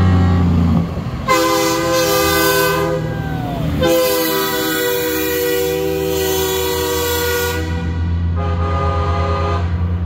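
Semi truck's air horn sounding a multi-note chord in three long blasts, the middle one longest, over the steady low rumble of a diesel engine.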